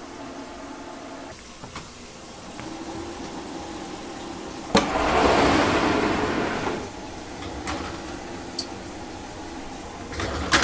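Commercial combi steam oven door opened with a sharp click, followed by about two seconds of loud rushing noise from the open oven, over a steady kitchen hum. Near the end a metal tray of clams clacks onto the oven rack.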